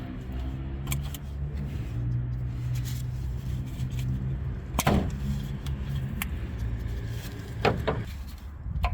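A 2.0-litre turbo diesel van engine idling steadily, with a few sharp knocks or clicks about five seconds in and near the end.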